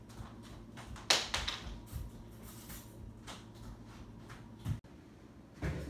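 Scattered light taps and clicks over a steady low hum, with one sharper click about a second in. The hum cuts off suddenly near the end, followed by a dull thump.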